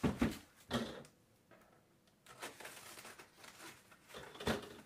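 Cardboard shipping boxes being set down and shifted on a tabletop: two dull thumps near the start, then quiet scraping and handling of the cardboard, and another knock near the end.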